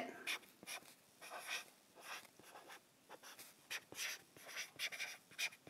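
Handwriting on an iPad touchscreen: faint, short scratchy strokes in an irregular run as letters are written.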